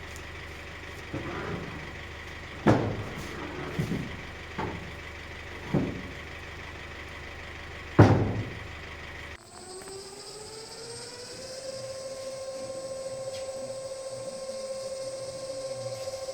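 Several sharp metallic knocks and clanks that ring on, over a steady hum. They are followed by a steady mechanical whine that rises in pitch over a couple of seconds and then holds level.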